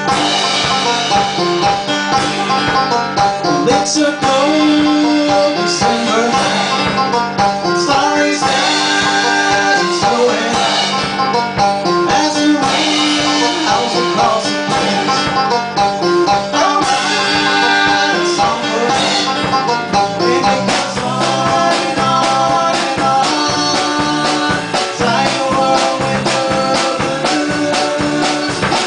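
Small acoustic band playing a song live, with acoustic guitars strumming and picking.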